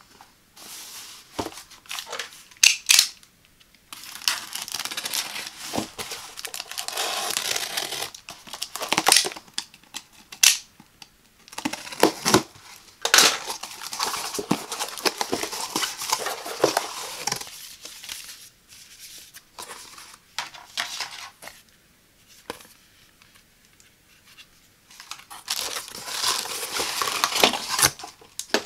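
Hands opening a cardboard shipping box: packing tape peeled off the cardboard in long tearing rasps, with taps and scrapes on the box as the flaps are folded back, and rustling near the end as the plastic-wrapped contents are reached.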